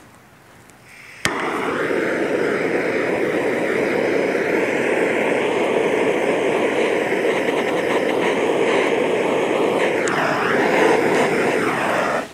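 Handheld gas torch lit with a click about a second in, then burning with a loud, steady rushing hiss, shut off suddenly near the end.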